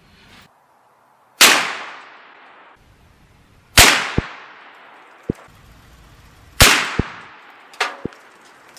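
.350 Legend rifle fired three times, roughly two and a half seconds apart, each shot ringing off over about a second. Fainter short clicks and knocks come between and after the shots.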